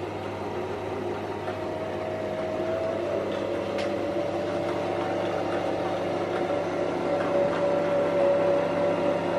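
Electric sewing machine's motor running steadily while winding thread onto the bobbin: a steady motor whine that grows a little louder toward the end.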